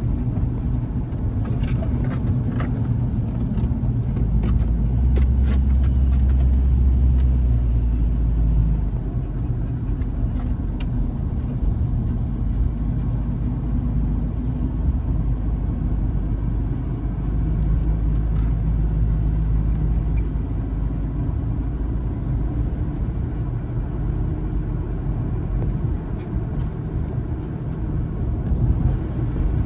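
Steady low engine and road rumble of a car driving, heard from inside, with the engine note shifting slightly now and then and a few short clicks in the first several seconds.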